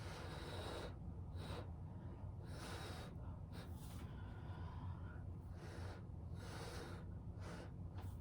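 A person blowing hard puffs of breath by mouth, about seven or eight separate rushes of air, to push wet acrylic paint across a canvas in a Dutch pour. A steady low hum lies under them.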